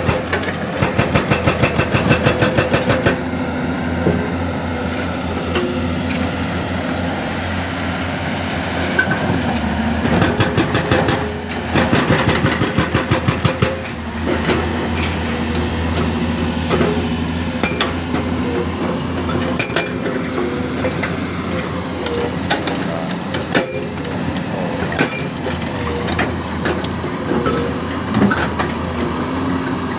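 Excavator-mounted hydraulic breaker, the Komatsu PC210's, hammering rock in rapid runs of blows, during the first three seconds and again from about ten to fourteen seconds in. Under it the excavator's diesel engine runs steadily, with scattered single knocks between the runs.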